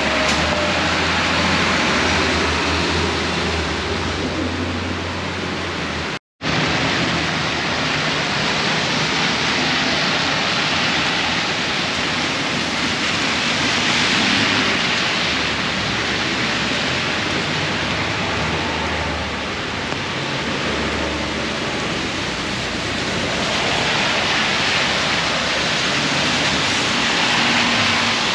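Heavy rain pouring on an umbrella overhead and on wet pavement, a dense steady hiss, with a low traffic rumble under it in the first few seconds. The sound cuts out completely for an instant about six seconds in.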